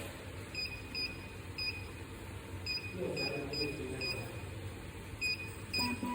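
About nine short, high electronic beeps at uneven intervals, with a lower steady tone starting near the end.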